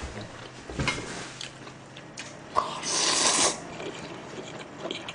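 A person slurping chewy bibim jjolmyeon noodles, with one long wet slurp starting about two and a half seconds in, after a single click.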